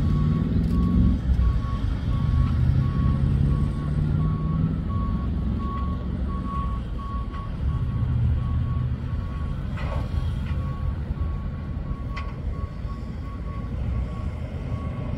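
Semi-trailer truck's diesel engine rumbling and pulling away, its pitch climbing twice over the first few seconds as it accelerates. A vehicle's reversing alarm beeps repeatedly at a steady pace throughout, over a continuing low rumble.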